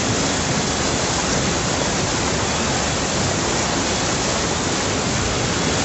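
Muddy floodwater rushing through a street in a fast, churning torrent: a loud, steady rush of water.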